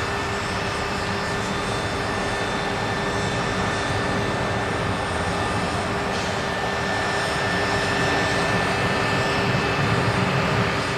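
Steady jet aircraft engine noise on the ramp: a dense rushing hiss with thin steady whining tones, growing a little louder near the end.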